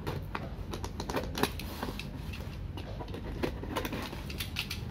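Snap-off utility knife cutting through the packing tape and cardboard of a parcel box, with irregular scrapes and sharp clicks as the box is handled.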